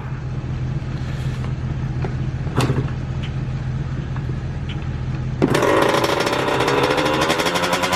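Yamaha YZ85's two-stroke single-cylinder engine catching on a cold start about five seconds in, then running with a fast, rattling beat. A low steady hum runs under the first part.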